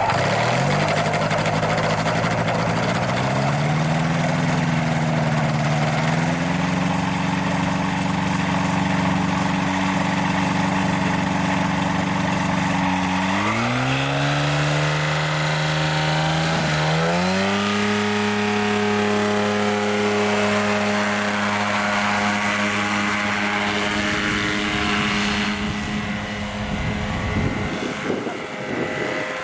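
Paramotor trike's engine and pusher propeller running and being throttled up for takeoff, its pitch rising in stages, most sharply about halfway through and again a few seconds later.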